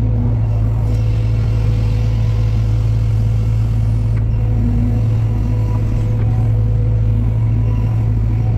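The diesel engine of a heavy construction machine running steadily at a constant speed, a continuous low drone with no change in pitch.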